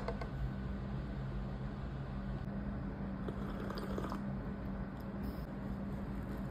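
Eating sounds: soft flour-tortilla tacos being handled, folded and bitten, with a faint soft rustle about three and a half seconds in, over a steady low hum.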